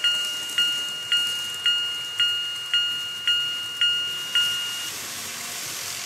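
Electronic warning bell of a TOMIX 5555 TCS automatic level crossing (N-scale model) dinging steadily about twice a second, each strike ringing and fading. It stops about four and a half seconds in, once the train has cleared the crossing and the gates go up.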